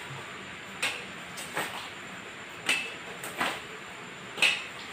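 Wooden sticks used as crutches and sandaled feet knocking on a hard floor during swing-through crutch walking: about five sharp taps, roughly a second apart.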